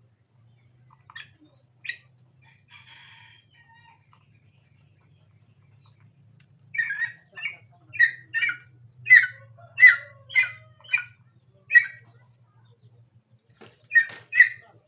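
Green junglefowl calling: a run of short, sharp calls, about two a second, starting about halfway through, with more calls near the end. Two short clicks come in the first two seconds.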